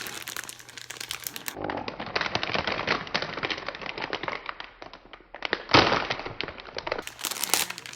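Plastic packaging crinkling and crackling as it is handled and torn open, with one louder burst about six seconds in.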